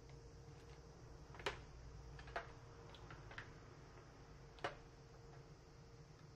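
Light clicks and taps of packaged kitchen supplies (a filter cartridge, a detergent refill pouch, drain nets in an enamel pot) being placed and adjusted by hand in a tray: three sharper taps about a second and a half, two and a half and four and a half seconds in, with a few fainter ticks between, over a faint steady hum.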